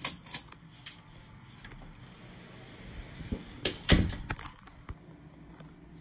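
A bead pull-chain light switch clicks once, followed by scattered knocks and clatter, the loudest a deep thump about four seconds in.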